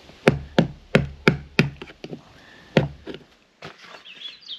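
A hand tool knocking at old sealant around a vent on a truck camper's roof, chipping it away: sharp knocks about three a second that stop about three seconds in.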